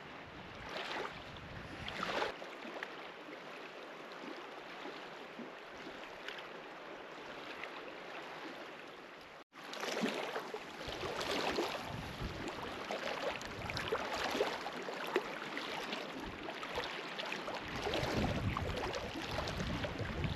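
Gusty wind, swelling and easing, with low rumbling from wind buffeting the microphone in the second half. The sound drops out for an instant about halfway through.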